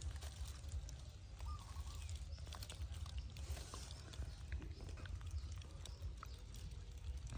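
A baby monkey gives one short, thin squeak about a second and a half in, among faint scattered clicks and taps over a low steady rumble.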